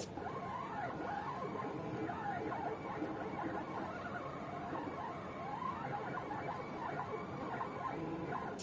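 The two NEMA 17 stepper motors of a 4xiDraw belt-driven pen plotter whine as the pen head draws, their pitch gliding up and down constantly as the motors speed up, slow down and change direction along the strokes. There is a brief sharp click right at the start and another at the end.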